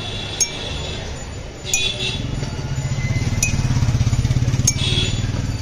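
A metal spoon clinking sharply against a container about four times as it is worked in a jar. Under it a motor vehicle engine rumbles, building from about two seconds in and loudest near the end.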